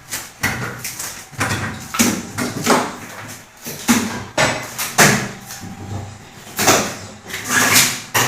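Hammer blows at an uneven pace, about two sharp knocks a second, some trailing into a short rasp: hammering to break out work around a leaking bathroom drain.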